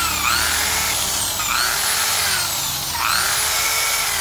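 Corded electric drill spinning a steel wire cup brush against the metal of a motorcycle engine cylinder to scrub it clean. A steady, loud scraping hiss with squealing tones that rise and fall about once a second.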